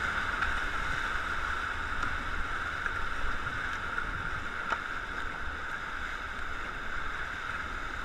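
Whitewater rapids rushing steadily around a raft, with some wind rumble on the microphone.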